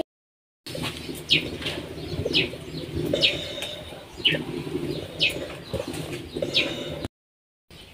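Birds chirping: short falling calls roughly once a second, over a low, uneven murmur.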